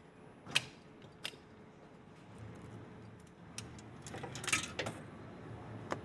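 A few sharp, separate clicks with light handling noise between them, and a short flurry of clicks and rattles about four and a half seconds in.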